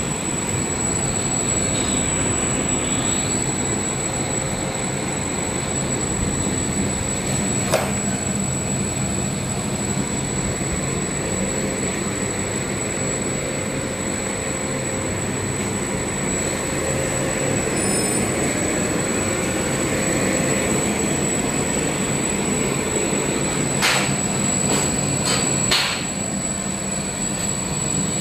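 Mealworm sifting machine running: a steady mechanical rumble and hum with a constant thin high whine. A few sharp clicks come through, one about eight seconds in and a short cluster near the end.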